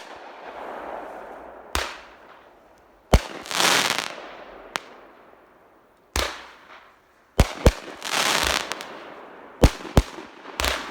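Consumer aerial fireworks going off, a sharp bang every second or two with quick pairs. Several bursts are followed by about a second of crackling.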